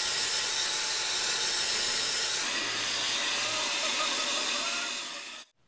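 Handheld hair dryer blowing on wet hair: a steady, even rushing hiss that cuts off abruptly shortly before the end.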